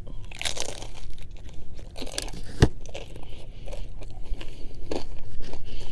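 Close-miked chewing and biting of food, with wet mouth sounds and scattered crunches and clicks; one sharp click about two and a half seconds in.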